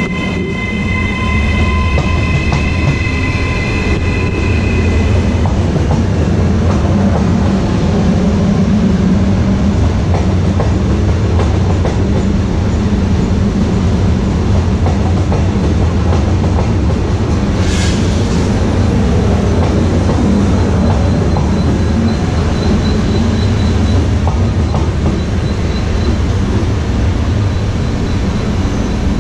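Hitachi Rock ETR 521 double-deck electric multiple unit departing and running past on the adjacent track, a steady loud rumble of wheels and running gear. A high whine of several tones fades out within the first five seconds, and one sharp clack comes about eighteen seconds in.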